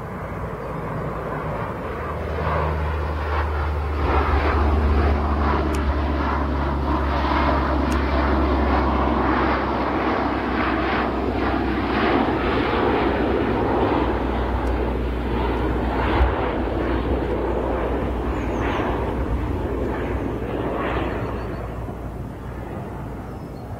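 Lockheed C-130 Hercules four-engine turboprop passing low overhead: a steady low propeller drone with a buzzing edge that builds over the first few seconds, stays loud through the middle and fades near the end.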